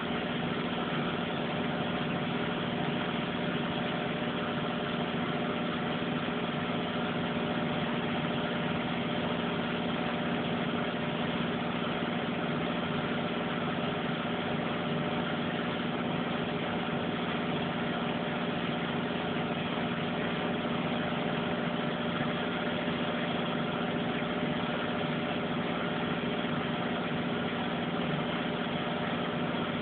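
Front-loading washing machine in its final spin, the drum turning steadily at high speed short of its 1,400 rpm top, with a constant motor whine and hum.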